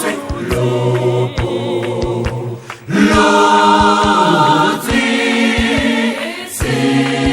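Unaccompanied vocal group singing held chords in close harmony, with a brief drop just before three seconds in and a full, louder entry right after. Sharp taps sound here and there under the voices.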